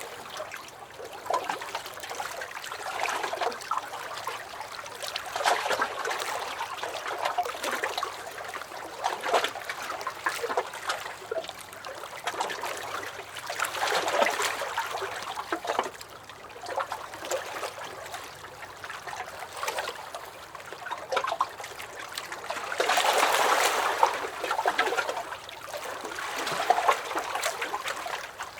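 Small lake waves lapping and sloshing against a dock, in uneven surges every few seconds with a larger splash about 23 seconds in.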